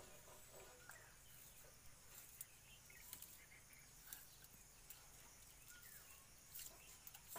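Near silence: faint outdoor room tone with scattered light clicks and a few faint bird chirps.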